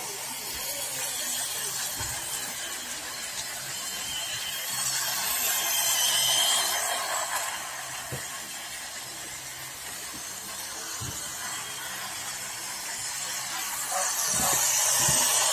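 Toy trains on plastic track: the steady high whirring of their small electric motors and wheels. It grows louder about six seconds in and again near the end, as a train runs close by.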